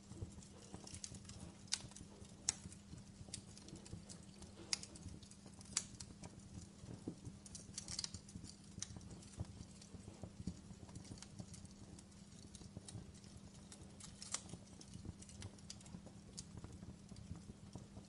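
Wood campfire crackling: irregular sharp pops and snaps, a few louder than the rest, over a low steady hum.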